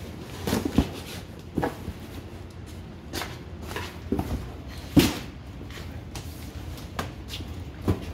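Clothes being pulled out of a cardboard box and handled: irregular rustles and knocks, the loudest thump about five seconds in.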